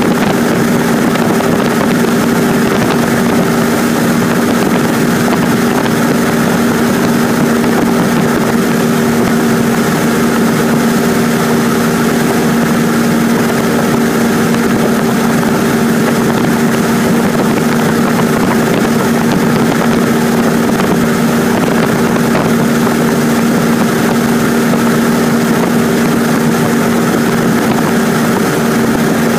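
A Cessna 150's Continental O-200 four-cylinder engine and propeller droning steadily in flight, heard from inside the cockpit, with a constant hum and no change in power.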